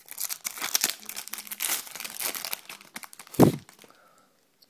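Foil trading-card pack wrapper crinkling and tearing as it is opened and handled, then a single low thump about three and a half seconds in.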